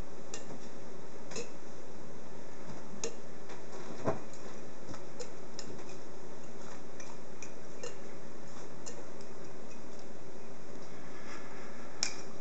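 Scattered clinks and taps of bottles, metal shaker tins and a glass being handled and flipped in working-flair bartending, with a sharper knock about four seconds in and another near the end, over a steady low hum.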